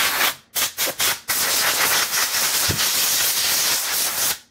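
Compressed-air blow gun blasting: three short blasts, then one steady blast of about three seconds that cuts off abruptly near the end. It is blowing brake cleaner off a freshly sprayed engine part.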